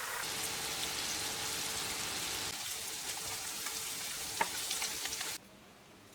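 Food frying in hot oil in a pan, a steady sizzle with scattered crackles and pops. It cuts off abruptly about five seconds in, leaving only faint ticking.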